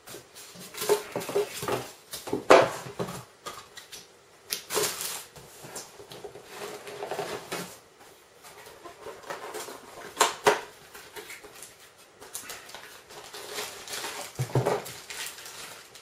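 Polystyrene foam packing pieces and cardboard being handled in a box: irregular knocks, scrapes and brief squeaky rubbing as the foam blocks are lifted and shifted.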